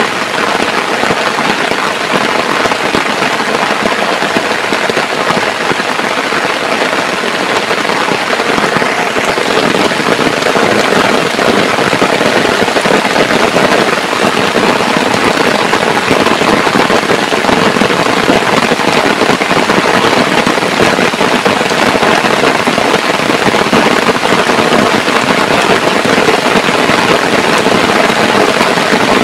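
Heavy rain falling, a steady loud hiss that grows slightly louder about a third of the way in.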